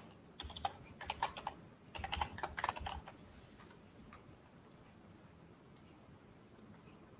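Computer keyboard typing: a quick run of keystrokes in the first three seconds, then a few faint single mouse clicks.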